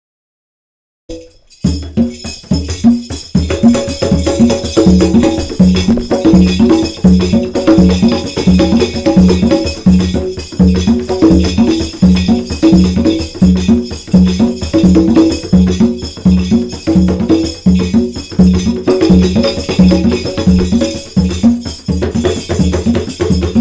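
Music starting about a second in: a short melodic phrase of plucked or struck notes repeated over and over, over a steady percussive beat with jingling.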